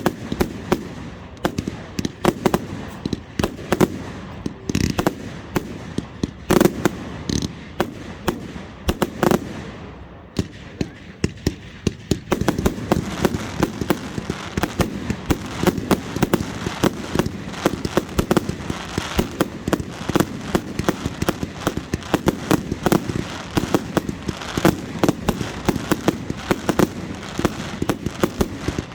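Fireworks going off: a quick run of sharp bangs and crackles that becomes a dense, almost unbroken barrage from about twelve seconds in.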